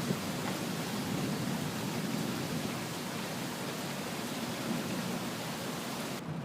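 Heavy rain falling steadily, a dense, even hiss that cuts off abruptly near the end.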